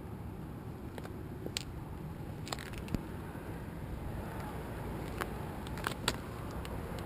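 Scion FR-S flat-four with a Flowmaster exhaust idling with a steady low rumble, with scattered sharp clicks and ticks.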